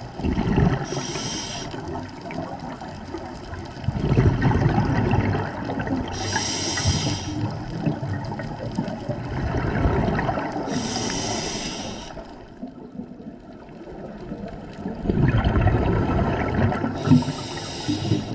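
Scuba regulator breathing underwater, about four breaths: each has a gurgling rumble of exhaled bubbles and a short high hiss of inhaled air through the regulator.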